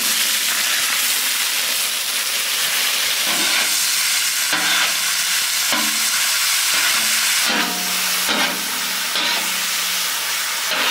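Raw chicken breast strips sizzling loudly on a hot oiled steel griddle over a wood fire. The sizzle starts suddenly as the chicken is tipped onto the metal and carries on steadily while the strips are stirred with a large metal spoon.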